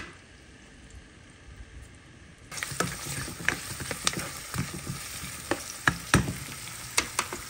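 Onions sautéing in a frying pan: faint at first, then a steady sizzle that starts abruptly about two and a half seconds in, with a utensil repeatedly scraping and tapping the pan as they are stirred.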